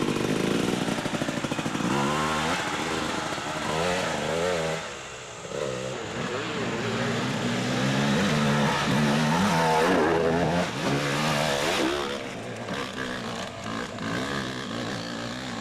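Dirt bike engine revving, its pitch rising and falling again and again with the throttle.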